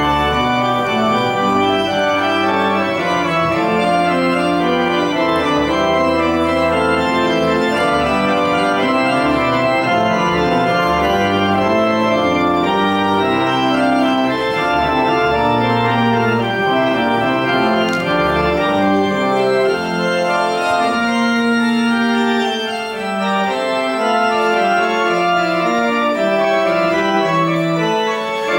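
Church organ playing a dense piece with several lines of notes at once over low bass notes that move step by step.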